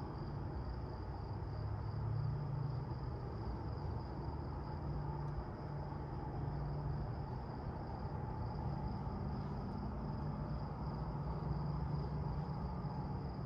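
Distant interstate traffic as a steady low drone that swells and eases slowly, with insects trilling in one constant high note over it.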